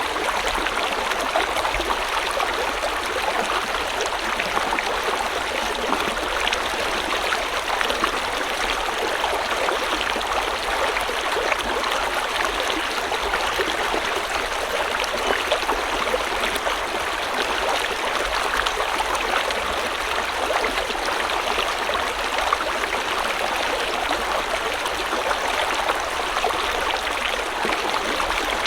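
River water flowing steadily over stones, a continuous rushing with many small splashes and gurgles.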